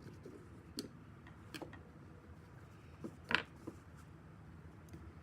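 A few light, separate clicks and taps of small metal parts and tools being handled during a brake caliper rebuild, the loudest a sharp knock about three and a half seconds in.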